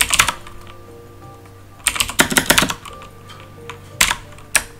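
Computer keyboard being typed on in short bursts: a quick cluster of keystrokes at the start, a longer run about two seconds in, and two single key presses about four seconds in.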